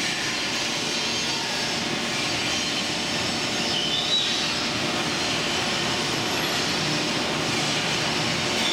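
Steady mechanical running noise of chain-driven live roller conveyors, with a brief high squeal about four seconds in.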